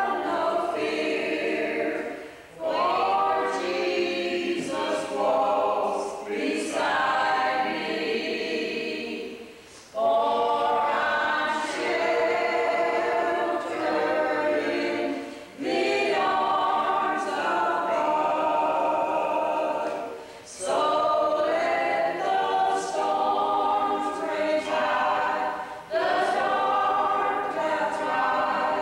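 A small group of mostly women's voices singing a song together without accompaniment, in phrases with short breaks between them.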